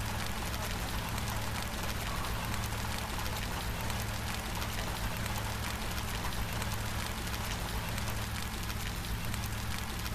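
Steady rain falling, a dense even hiss thick with the ticks of individual drops striking, over a steady low hum.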